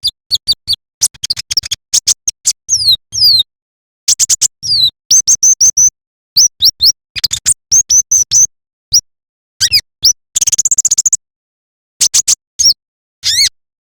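Brown-throated sunbird (konin) singing: quick clusters of sharp, high chirps and down-slurred whistles, with a fast trill about ten seconds in. The recording is loud and clipped.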